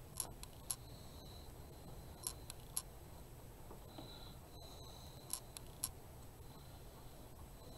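A few faint light clicks, in pairs about half a second apart, as small cardboard craft pieces are handled and set in place on a craft mat, over quiet room tone.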